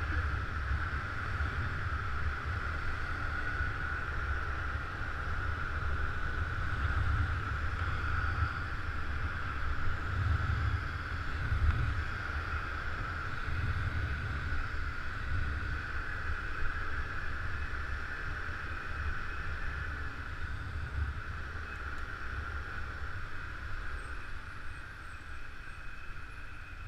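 Scooter riding on the road: wind buffeting the microphone in a low, fluttering rumble over a steady hum of engine and road, easing slightly near the end.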